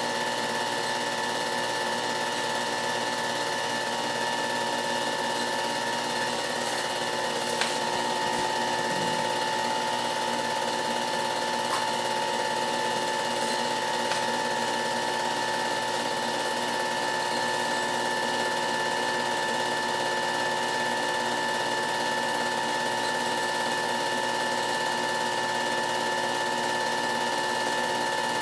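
Film projector running: a steady mechanical whir and rattle with a constant hum, unchanging throughout.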